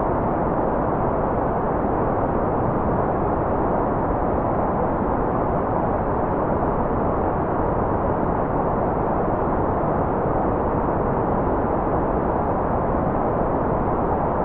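Steady white noise from a continuous noise track, an even, unbroken rush that is muffled, with its weight in the low and middle range and no bright high hiss.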